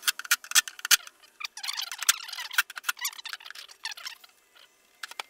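Cordless power driver running a bolt into a metal battery box cover: a run of sharp metallic clicks, then a stretch of squeaky chirping over a faint steady motor tone, which dies away near the end.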